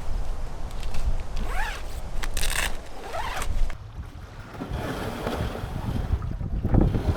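Strong, gusty wind buffeting the microphone with a low rumble, with a short zip-like rasp about two and a half seconds in.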